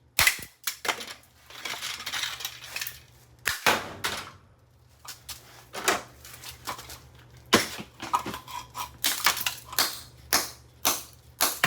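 A Gentex ST24-30WR fire alarm being smashed on concrete: a dozen or more sharp, irregular blows with cracking and crunching between them.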